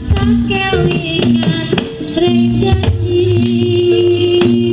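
Live Javanese jaranan ensemble music: a held, stepping melody line over low sustained notes, with frequent drum strokes.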